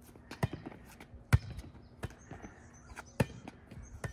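A volleyball being hit back and forth by hand: about five sharp smacks of hand or forearm on the ball, roughly one a second, the loudest about a second and a half and three seconds in.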